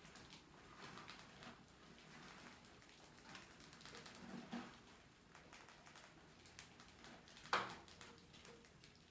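Faint, scattered light ticks and scratches of mice scrabbling on the plastic bucket and wire grille, with one brief, louder sharp sound late on.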